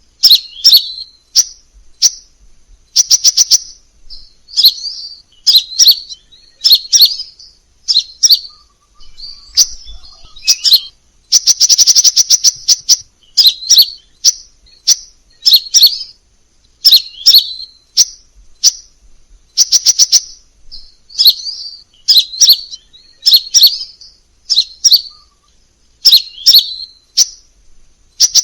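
Crimson sunbird calling: short high-pitched chirps alternating with fast rattling trills, repeated about once a second. A longer rapid trill comes near the middle.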